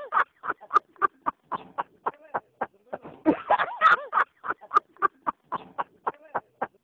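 Men laughing hard in rapid rhythmic pulses, loudest at the start and again about three to four seconds in, trailing off just before the end.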